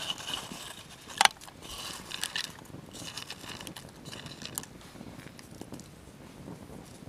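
Spruce sprigs, dry leaves and berries rustling and crinkling as they are tipped from a wooden bowl into a kettle of water, in several short bursts. One sharp knock about a second in is the loudest sound.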